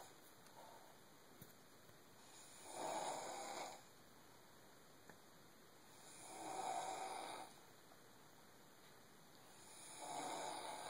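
Snoring: three long, breathy snores about three and a half seconds apart, each lasting over a second, with quiet between them.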